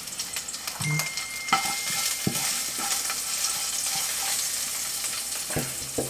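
Butter, garlic and onion sizzling in a nonstick frying pan that the cook judges a little too hot, the pan shaken and stirred with a silicone spatula. A steady high hiss, with a few light knocks of the spatula against the pan.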